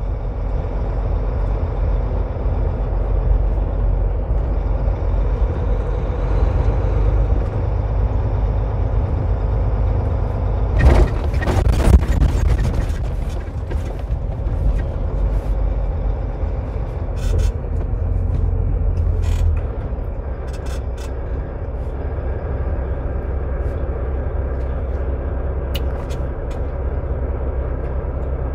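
Semi-truck's diesel engine and road noise running steadily as it drives slowly through city streets, with a loud short burst of hiss about 11 seconds in. The low rumble gets quieter about 20 seconds in.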